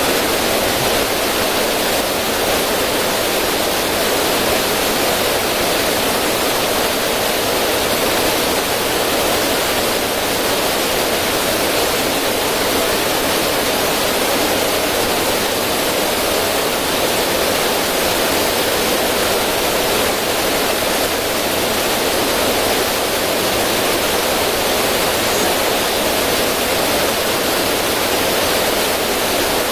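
River water rushing steadily over rocks in a small waterfall, an even, unbroken hiss.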